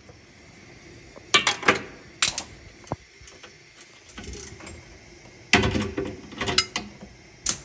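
Hand tools clicking and clanking on metal in short irregular bursts, the longest about two-thirds of the way through: a wrench working at a rusted air-tank fitting.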